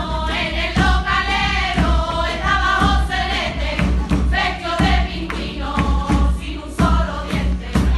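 A carnival singing group (chirigota) singing a song together in chorus, with a bass drum striking about once a second.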